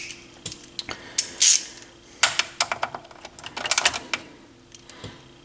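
Irregular clicks and clacks of small plastic and metal turntable parts being handled and fitted together during reassembly, coming in short clusters with quiet gaps between.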